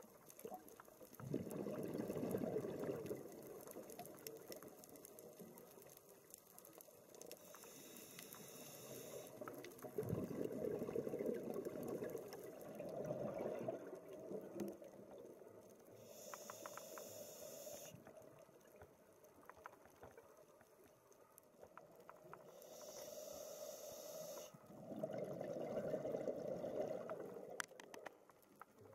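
Scuba regulator breathing heard underwater: bursts of exhaled bubbles gurgling for a couple of seconds, several times, with a higher hiss of inhalation in between.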